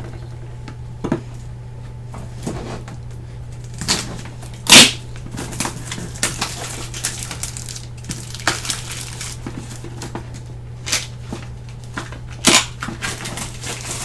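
A power supply being unboxed by hand: cardboard and plastic packaging rustling and crinkling, with scattered knocks and clicks and a sharp loud crack about five seconds in and another near the end. A steady low hum runs underneath.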